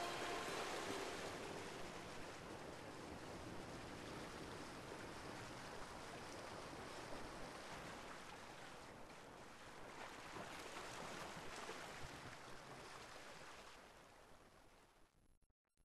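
Steady rush of open-sea waves and water, fading away near the end.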